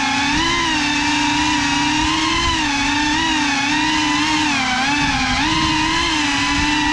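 Small FPV quadcopter's electric motors and propellers whining in flight, the pitch wavering up and down with the throttle.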